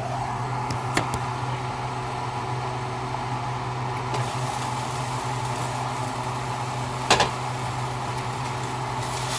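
A steady low machine hum with two short sharp clicks, one about a second in and a louder one about seven seconds in.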